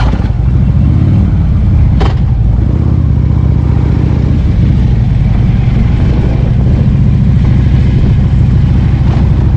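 Harley-Davidson V-twin motorcycle engine running steadily, heard close up from the rider's seat, with one sharp click about two seconds in.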